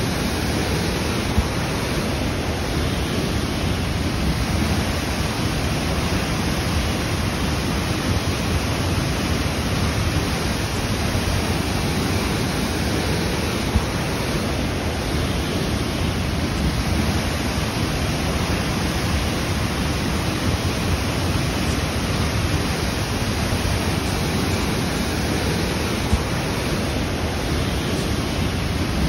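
Steady, unbroken rush of a waterfall, a dense even wash of falling water with no changes.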